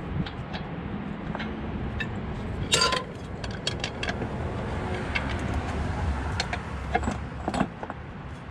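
Metal tools clinking and clattering in short sharp clicks, with one louder metallic clank about three seconds in, over a steady low rumble.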